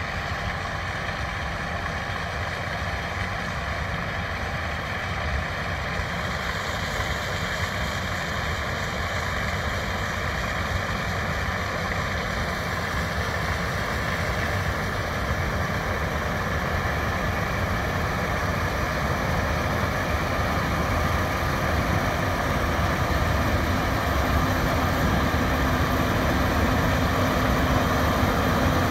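John Deere S780i combine harvester running while harvesting: a steady drone from its engine and threshing machinery that grows slowly louder as the machine draws nearer.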